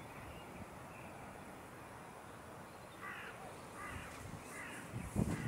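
A crow cawing three times, a little under a second apart, over a low steady background. A low thump near the end.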